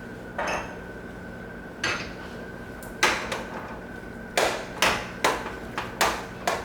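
A metal kitchen utensil knocking and clanking against a pot while spinach is worked into mashed potatoes. There are about eight irregular knocks, coming closer together in the second half.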